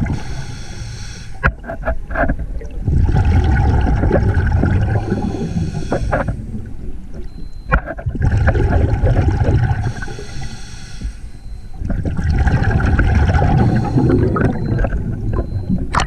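Scuba regulator breathing underwater: about three breath cycles, each a hissing inhalation followed by a long bubbling exhalation.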